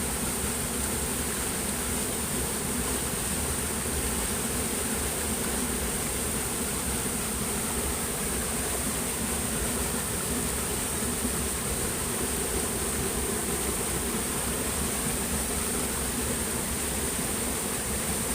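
Steady high-pitched drone of insects, unbroken throughout, over a constant rushing noise.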